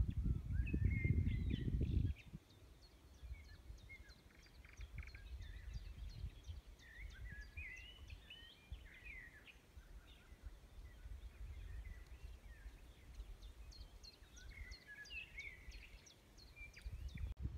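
Small songbirds singing and chirping, several overlapping calls with quick trills. A loud low rumbling noise stops abruptly about two seconds in, leaving a softer low rumble under the birdsong.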